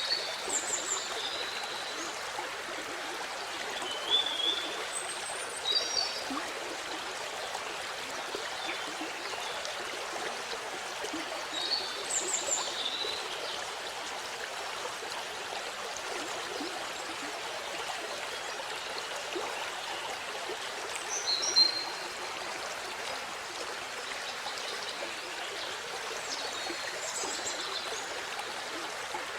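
Waterfall: a steady, even rush of flowing water, with small birds chirping briefly a handful of times.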